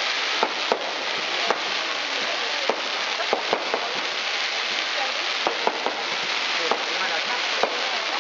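Fireworks crackling with a steady sizzling hiss, with a dozen or so sharp pops scattered irregularly through it.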